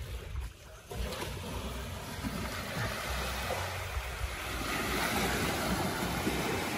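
Sea water washing and rushing, with wind rumbling on the microphone. The hiss starts about a second in and swells a little past the middle.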